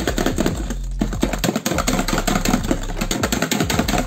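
Wire balloon whisk beaten fast by hand through whipped eggs and sugar in a plastic mixing bowl: a rapid, even clicking and tapping of the wires against the bowl, with a brief pause about a second in. The mixture is already beaten to a thick, fluffy sponge batter.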